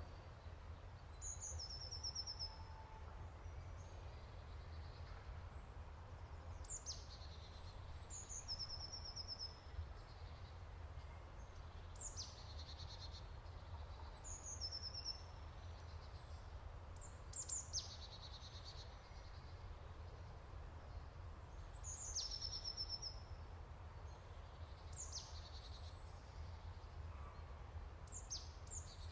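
A small songbird repeating a short, high song phrase about every two to five seconds: a few quick descending notes followed by a brief trill, over a steady low rumble.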